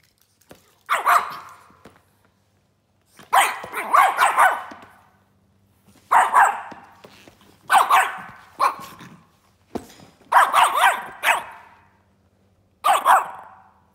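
Small dog barking angrily in repeated bouts, some single barks and some quick runs of several, a second or two apart: she is reacting to a baseball glove waved at her, which she hates.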